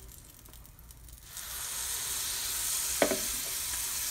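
Oat and banana pancake batter sizzling as it lands in hot melted butter in a small nonstick frying pan. The steady sizzle starts about a second in as the batter hits the fat.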